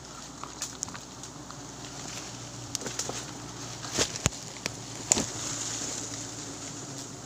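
Swarm of wild giant honey bees buzzing around their disturbed nest, a low steady hum, the bees agitated by the harvest. Sharp knocks and rustles of the camera being handled, the loudest about four and five seconds in.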